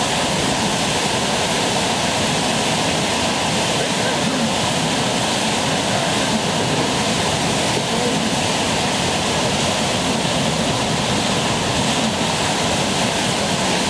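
Whitewater of the Eisbach's standing river wave rushing and churning, a loud steady rush with no let-up.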